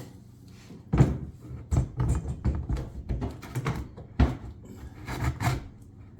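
Glass cooktop being set down into its countertop opening: a run of irregular knocks and thunks with scraping, the sharpest about a second in and again just after four seconds.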